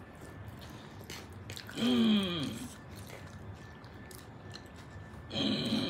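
People chewing mouthfuls of chilli potato, with small wet mouth clicks. About two seconds in, a short vocal sound with a falling pitch; a voice starts speaking near the end.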